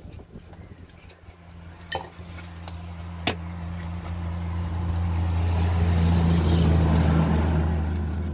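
A vehicle engine hum that swells to its loudest about six to seven seconds in and then eases, as the vehicle passes close by. A few sharp clinks of metal come about two and three seconds in.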